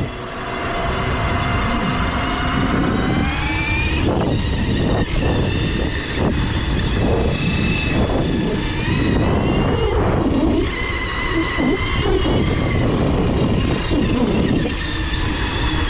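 Bafang BBS-HD mid-drive e-bike motor whining under full-power acceleration, its pitch climbing over a few seconds, dropping back and climbing again several times, over a steady rush of wind on the microphone.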